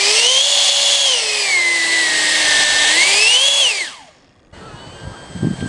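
Electric ducted fan of an Art-tech Jetiger RC jet being run up on the throttle: a high whine that climbs, eases down, climbs again, then is cut about four seconds in. A faint steady whine follows.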